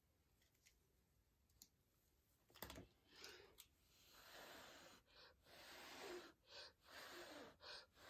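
Faint soft puffs of breath blown by mouth across wet acrylic paint to push it down the canvas, several in a row through the second half, after a small knock a little before that.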